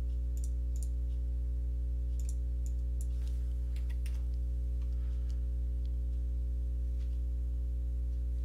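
Scattered computer keyboard keystrokes and mouse clicks as a value is typed into a CAD dialog, over a steady low electrical hum.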